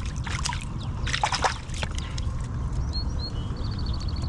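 Water sloshing and splashing twice at the side of a kayak just after a bass is released, then a small bird's two short high chirps and a quick run of high ticks near the end, over a steady low rumble.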